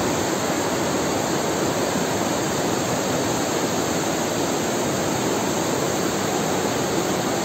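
A steady rushing noise, even and unchanging, that cuts off abruptly at the end.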